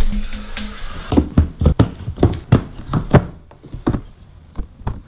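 Knocks and clicks of a hard plastic carrying case being handled on a wooden floor, its latches worked by hand: about a dozen sharp strikes over three seconds, thinning out and growing fainter near the end.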